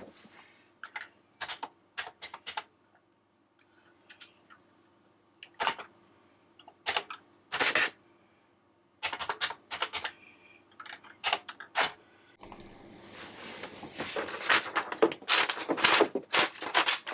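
Keystrokes on a Commodore 64 keyboard, typed in short bursts as commands are entered. A few seconds before the end, the Epson FX-80 dot-matrix printer starts a steady mechanical running noise with rapid clicks.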